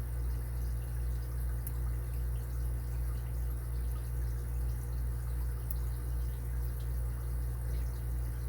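Faint, scattered ticks and light scrapes of a lock pick working the pins of an Abus 80Ti padlock under tension, over a steady low hum.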